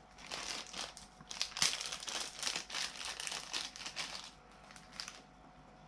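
Small clear plastic packaging bag crinkling as it is handled in the fingers: a run of quick crackles that stops about a second before the end.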